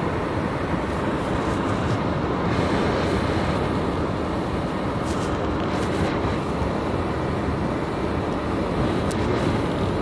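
Steady rumble and hiss inside a car driving on snowy streets: engine and road noise heard from the cabin.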